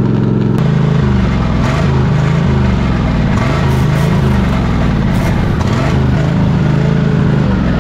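Craftsman GT3000 lawn tractor engine running, its speed rising and falling over and over from about half a second in.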